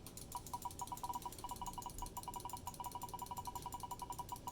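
A spinning name wheel ticking rapidly and evenly, about ten faint, slightly pitched ticks a second, as it picks who gets the card.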